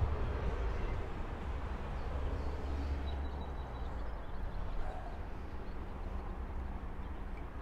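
Low outdoor rumble that is loudest at the start and slowly fades.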